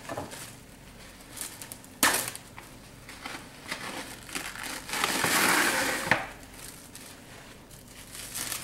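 Plastic cling wrap crinkling as it is handled and pressed over raw chicken breasts, with a sharp click about two seconds in and a longer spell of crinkling around five to six seconds in.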